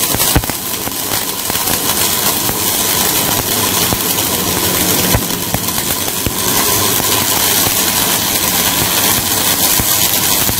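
Stick (arc) welding on a steel pipe: the electrode arc crackling and hissing steadily, with a few sharp pops.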